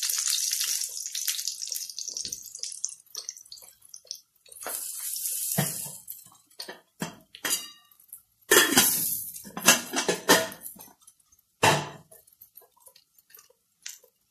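Eggplant slices sizzling in oil in a frying pan, fading over the first two seconds. Then scattered clinks and knocks of pots and dishes being handled, with short splashes of running water.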